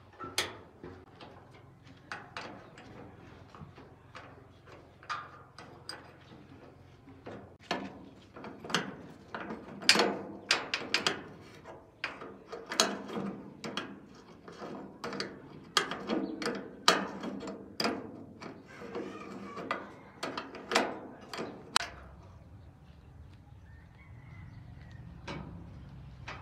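Irregular knocks and clanks of tools and metal parts being handled during repair work on a rice threshing machine. A low steady hum comes in near the end.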